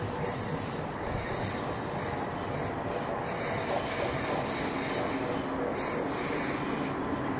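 Train wheels running on rail, with high-pitched wheel squeal coming and going several times. A low steady hum joins about halfway in.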